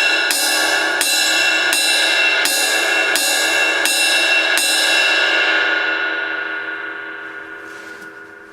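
Ultra-thin 18-inch crash/ride cymbal played on the bell with the tip of a drumstick: a steady run of hits, about one every 0.7 seconds. After the last hit, about two-thirds of the way through, it is left ringing and slowly fades.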